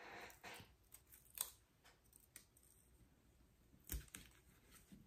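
Faint handling sounds of heat-resistant tape being pulled and pressed down over a sublimation transfer sheet on a sock: a short rasp at the start, then a few light clicks and a soft thump near the end.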